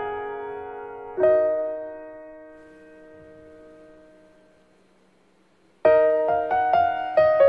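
Background piano music. A chord struck about a second in slowly dies away almost to silence, then a quicker run of notes starts near the end.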